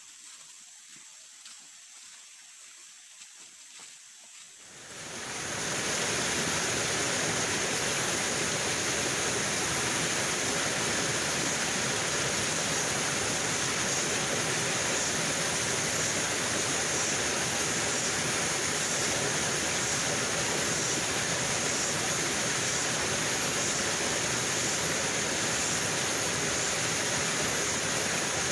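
Rushing stream water, a steady even hiss that rises in about five seconds in after a quiet start and then holds unchanged.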